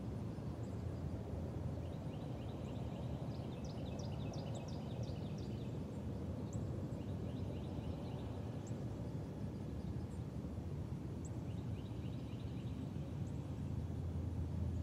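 Outdoor ambience: a steady low rumble, with small birds chirping in the trees in three quick runs of short chirps and a few single high chirps between them.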